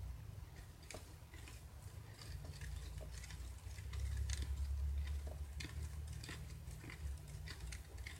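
Stirring stick working thick, sticky slime: irregular small wet clicks and squelches as the mixture thickens, over a low steady hum.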